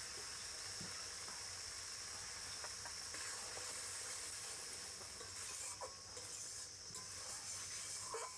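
Thick spice paste sizzling in a metal kadai while a wooden spatula stirs and scrapes it, with a few light scrapes against the pan. The masala is being fried down until the oil starts to separate.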